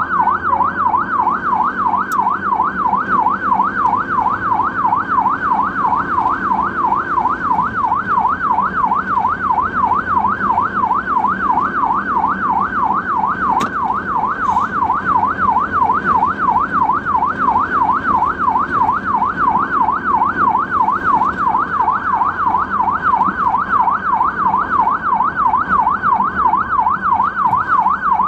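Ambulance siren sounding a fast rising-and-falling wail, about three sweeps a second, without a break, over the steady rumble of the vehicle on the road. A couple of brief sharp clicks are heard, one near the start and one about halfway.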